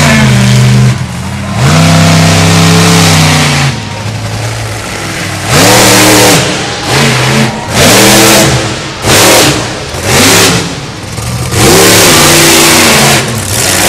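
Illuminator monster truck's engine revving hard, its pitch climbing and dropping with each stab of the throttle: long pulls at the start and near the end, with a quick run of short bursts in between.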